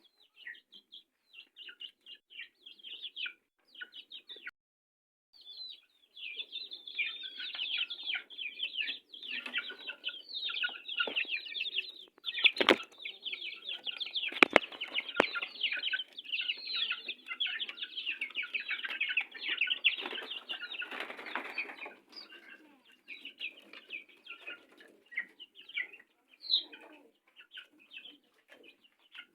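Kampung chickens in a coop clucking and chirping, sparse at first, then a long busy stretch of calls and wing-flapping commotion, with a couple of sharp knocks midway, before settling back to scattered clucks.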